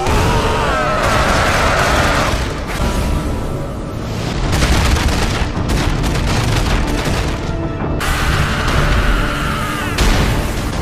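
Anime battle sound effects: repeated heavy booming impacts and rapid blasts over loud dramatic soundtrack music.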